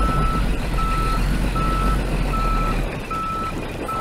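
Backup alarm on a heavy-haul transporter sounding a single steady tone, about five evenly spaced beeps a little under one a second, over a low engine rumble that drops away about three seconds in.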